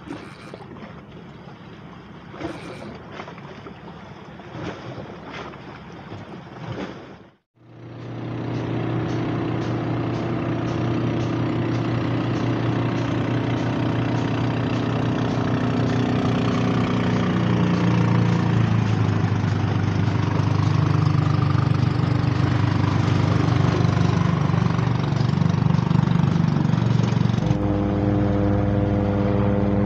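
Motorboat engine running with a steady drone that grows somewhat louder, its note shifting slowly. It comes in after a brief dropout about seven seconds in; before that the sound is quieter, with a few small clicks.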